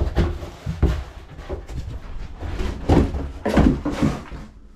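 Handling noise of a Stihl HSA 100 cordless hedge trimmer being lifted and moved about on a wooden bench: irregular knocks and rustles. The clearest knocks come near the start, about a second in, and around three to four seconds in.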